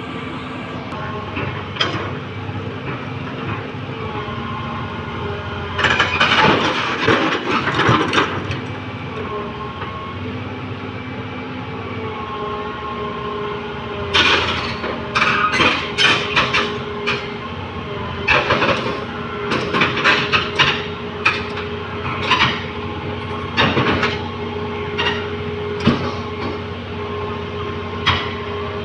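Excavator's diesel engine running steadily while its steel tracks clank and squeal in loud bursts, a cluster early on and then repeatedly through the second half, as the machine climbs onto the truck.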